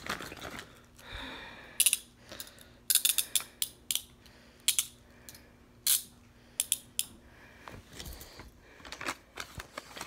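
Nickel-plated steel handcuffs being worked by hand: irregular runs of short metallic ratchet clicks as the cuff's swing arm is turned through the lock, with single clinks between them.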